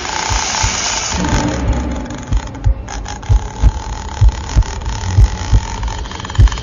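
Horror sound effect: a steady hiss with a thin held tone, joined from about two seconds in by a thudding double heartbeat, about one beat pair a second.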